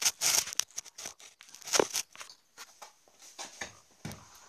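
Handling noise: irregular rustling and scraping with clicks, loudest in the first two seconds, then fainter scattered clicks.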